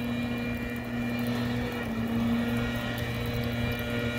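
Gas-powered backpack leaf blower running steadily, a continuous droning engine note held at an even pitch.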